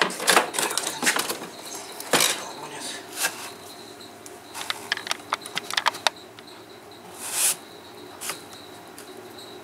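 Mercedes W123 heater box with its flaps being worked open and shut by hand: scattered clicks and knocks, the loudest about two seconds in and a quick run of small clicks a few seconds later, with a short rustle near the end.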